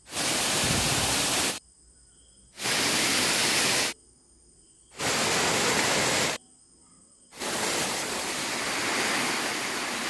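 Waterfall water rushing down over rock, a steady hiss of falling water. It comes in four stretches, each cut off abruptly by a silence of about a second; the last stretch is the longest.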